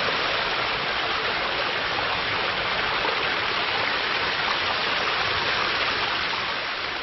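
Water rushing in a mountain valley stream: a steady, even hiss.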